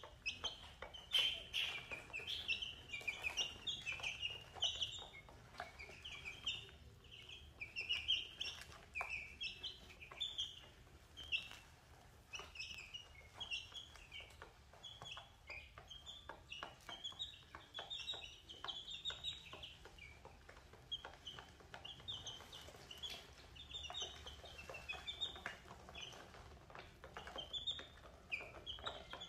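Young chicken chicks peeping: a continuous stream of short, high, overlapping peeps. Under them run many quick ticks of beaks pecking feed off a plastic tray.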